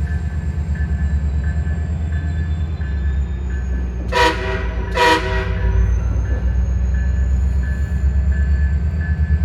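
Train horn sounding two short toots, about four and five seconds in, over the steady, pulsing low rumble of a train running. A faint high tone beeps over and over throughout.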